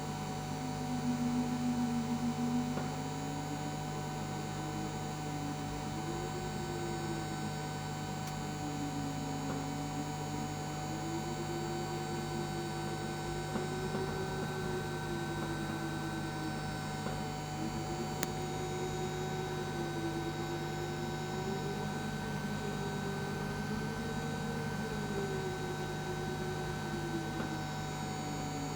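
Steady electrical hum with several constant tones, and above them one tone that slowly rises and falls in pitch.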